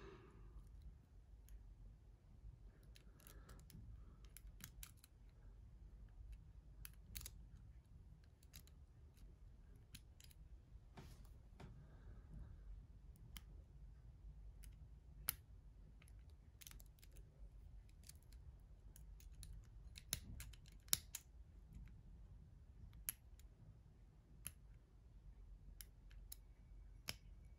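Faint, scattered metallic clicks of a hook pick lifting and setting the pins inside a 6-pin DESEO TS007 euro cylinder lock held under a tension wrench, a few clicks sharper than the rest.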